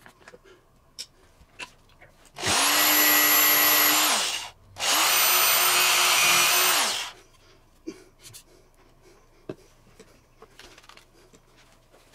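Handheld power drill running into a wooden board in two steady runs of about two seconds each, starting about two and a half seconds in, the second a little higher in pitch. Small knocks and handling clicks before and after.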